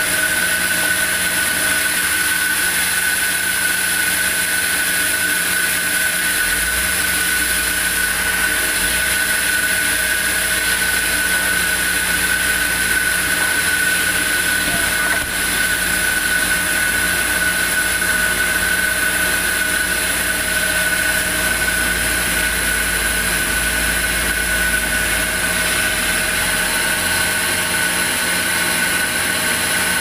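Large sawmill band saw running with a steady high whine, sawing timber. A deeper rumble comes in several seconds in and fades near the end.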